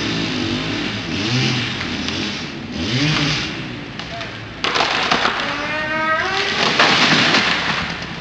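Two-stroke chainsaw engine running low and uneven, then revving hard about halfway through with a steeply rising whine.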